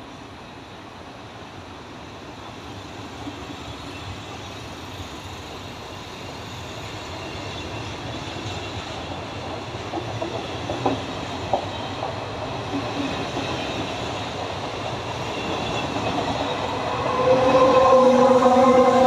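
Coaches of a Trenord regional passenger train rolling past with a steady rail rumble, slowly growing louder, and a couple of wheel clunks over rail joints about halfway through. Near the end the electric locomotive draws level and a loud steady hum of several tones comes in over the rumble.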